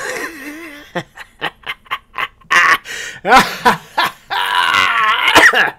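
Podcast intro sting: a rapid run of short clicks and cut-up sound clips with laughing voices, growing denser in the last second and a half before cutting off.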